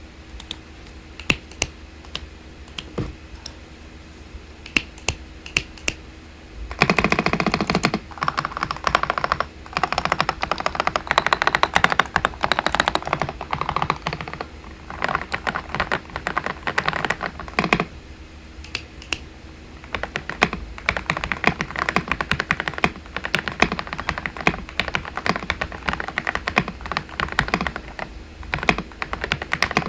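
Typing on a Dareu EK98 Pro mechanical keyboard with XDA-profile keycaps. It starts with single, spaced key presses, then about seven seconds in breaks into fast continuous typing, with a short pause a little past the middle.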